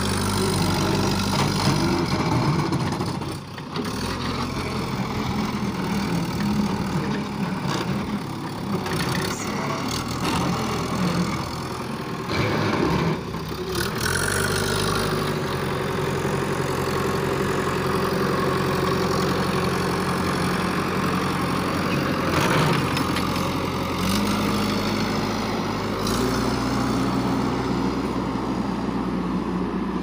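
JCB 3DX backhoe loader's diesel engine running while it works, its engine note stepping up and down in pitch several times as the revs change.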